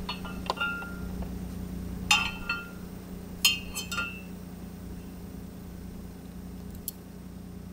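Keys and door-lock hardware clinking and clicking at a camper's rear door as it is locked: a few light clinks near the start, two louder ringing clinks at about two and three and a half seconds, and a small click near the end.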